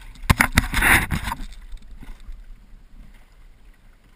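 A short burst of several sharp knocks and a splash against a small wooden sailing canoe, lasting about a second, starting about a third of a second in. Then faint steady water lapping at the hull, with a little wind on the microphone.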